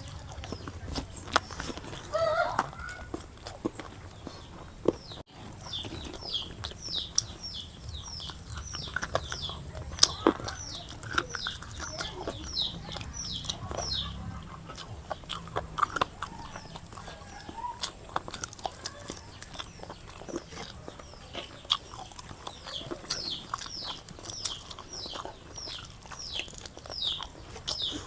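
Eating and chewing sounds, with short wet clicks and smacks, while a bird chirps in quick falling notes, two or three a second, starting about five seconds in and pausing for a while in the middle.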